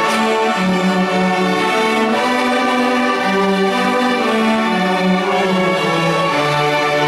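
A children's string orchestra of violins and cellos playing a tune in bowed, held notes that change every second or so over a lower cello line.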